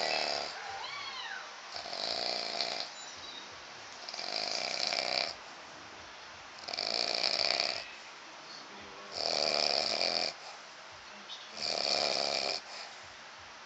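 A man snoring in a steady rhythm, one snore about every two and a half seconds, each lasting about a second, sounding like a herd of animals.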